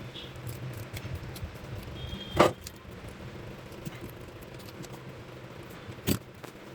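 A few sharp knocks and clinks, the loudest about two and a half seconds in and another near the end, over a low steady hum.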